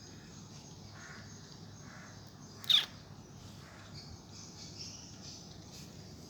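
A crow caws once, short, harsh and loud, a little under three seconds in, its pitch falling sharply.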